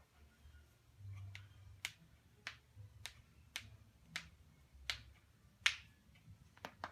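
A series of about ten faint, sharp clicks, roughly one every half to three-quarters of a second, over a low hum.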